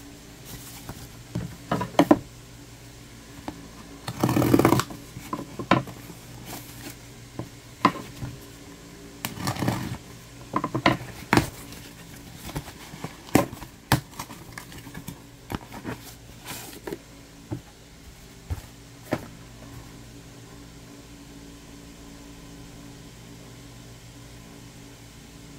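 Cardboard shipping box being handled and opened by hand: scattered rustles, clicks and scrapes of cardboard, with two longer scraping sounds about four and ten seconds in. The handling stops near the end, leaving only a steady low hum.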